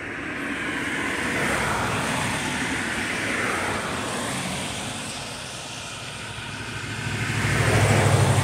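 Vehicle noise: a rushing sound that swells and fades over the first few seconds, then a louder swell near the end with a steady low engine hum.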